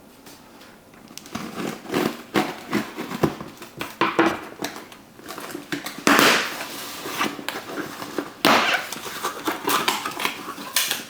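A cardboard product box and its packaging being opened and handled by hand, starting about a second in: irregular rustling, crinkling and scraping.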